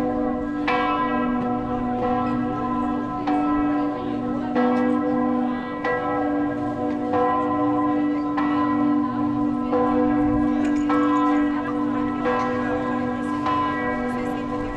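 Church bells ringing in a steady, even rhythm, one stroke about every second and a quarter, each stroke ringing on into the next over a continuous low hum.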